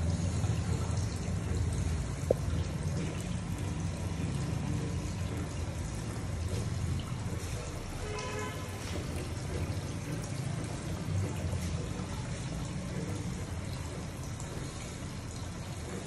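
Water fountain running: water splashing and trickling steadily, with a single sharp click about two seconds in.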